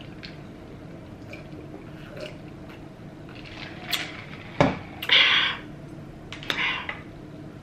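Drinking an iced drink from a glass mason jar, with faint sipping and swallowing at first. About four and a half seconds in comes a sharp clink of the glass and ice, followed by a few short, louder rustling bursts.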